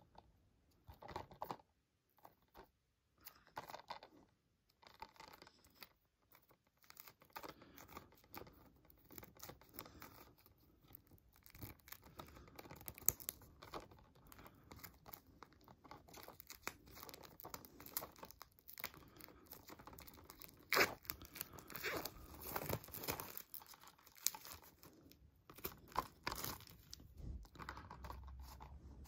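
Plastic shrink wrap being torn and peeled off a Blu-ray case by hand: irregular crinkling and tearing, with a few sharper crackles.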